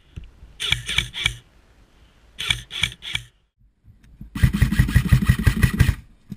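Airsoft gun firing: three quick shots, then four, then a rapid full-auto burst of about a dozen shots a second lasting roughly a second and a half.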